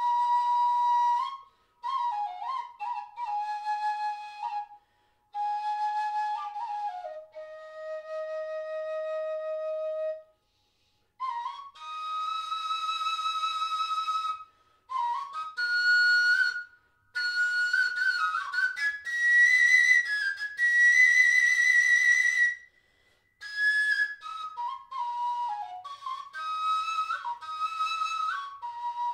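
A flute played slowly in phrases of held notes with slides between them, broken by short pauses, climbing to its highest notes in the middle.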